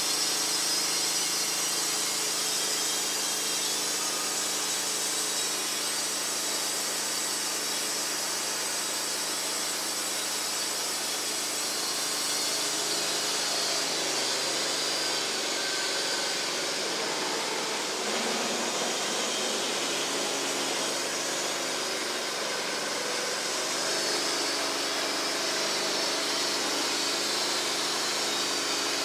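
Wood-Mizer LT15 band sawmill running, its band blade cutting through a hard maple log. The motor's hum drops in pitch for a stretch in the middle, under load, then comes back up.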